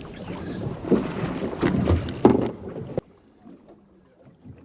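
Rough noise of wind on the microphone and water against a fishing boat, with irregular thumps. It cuts off suddenly about three seconds in, giving way to a much quieter stretch with a faint steady low hum.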